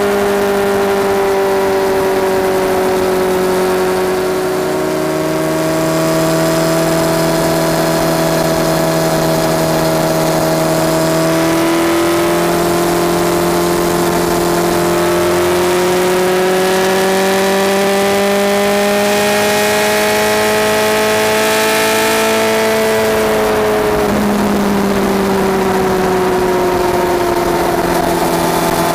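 Honda CBR1100XX Super Blackbird's inline-four at highway cruise, heard through Takkoni mufflers with straight pipes inside from a microphone under the seat. The loud exhaust note drifts gently up and down in pitch with the throttle, and drops noticeably about four-fifths of the way through.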